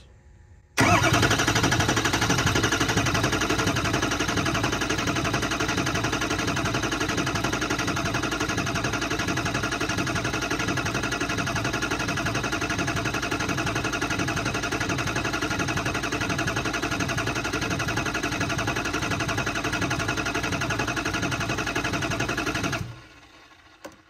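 Ford 6.0 Powerstroke V8 diesel turning over on its starter, jumped directly at the battery with the key out, so it cranks steadily without firing. It starts about a second in and cuts off suddenly near the end. This is a crank test for base oil pressure: the oil filter well does not fill, so the low-pressure oil pump is delivering no oil.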